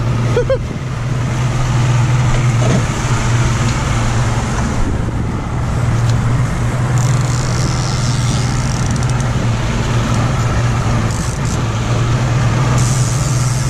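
Mercury 150-hp outboard motor running at trolling speed with a steady low drone, over the continuous rush of the boat's churning wake.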